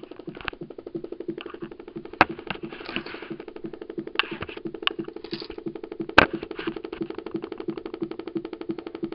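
A 2007 iMac making a fault noise after waking from sleep: a steady hum with a fast, even pulsing rhythm, and a few sharp clicks, the loudest about two seconds and six seconds in. Its cause is unknown.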